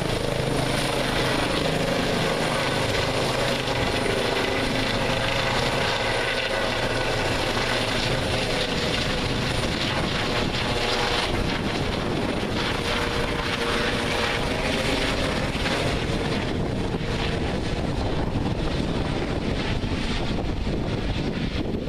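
Eurocopter EC135 twin-engine helicopter climbing away after take-off: steady rotor and turbine noise, its high end thinning out over the last few seconds as it draws away.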